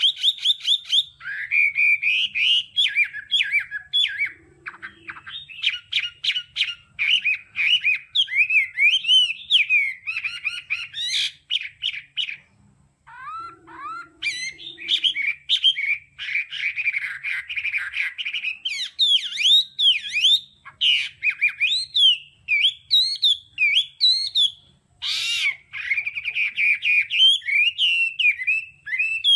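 Chinese hwamei (Garrulax canorus) singing a long, varied song of rapid whistled phrases that slide up and down in pitch and change from one phrase to the next, with short breaks about 12 and 24 seconds in.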